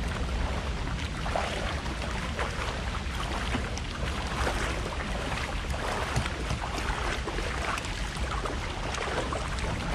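Wind buffeting the microphone in a steady low rumble, over the noise of water around kayaks on the move, with scattered short splashes.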